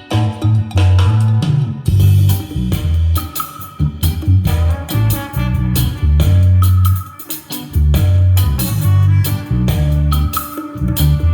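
Instrumental stretch of a pop song with guitar, heavy bass and drums, played back through car audio speakers under test.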